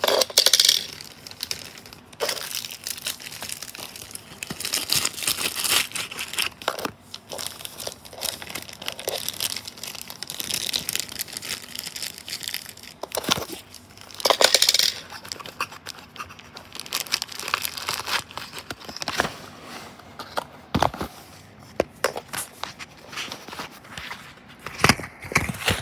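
Thin clear plastic wrapping crinkling and rustling in irregular bursts, with a few sharp clicks in between.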